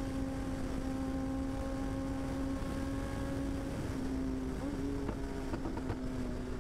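Kawasaki ZX-10R inline-four engine running at a steady high-speed cruise under wind rush, its pitch dropping about four seconds in as the throttle is rolled off, with a few exhaust pops near the end.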